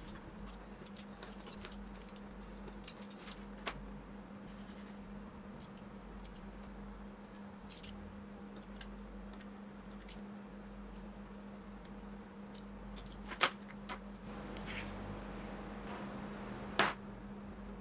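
Small clicks and taps of a steel ruler, a metal hand tool and a paper pattern being handled on a cutting mat, over a steady low hum. Near the end come a brief scraping stretch and two sharper clicks.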